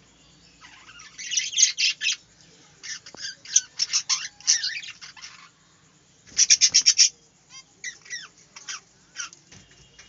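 A group of budgerigars chirping and chattering in short bursts of high warbling notes, with a fast run of sharp repeated chirps about six seconds in.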